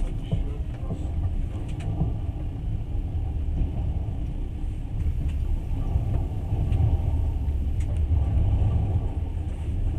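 Passenger train running, a steady low rumble of the wheels on the rails heard from inside the carriage, with a few faint clicks.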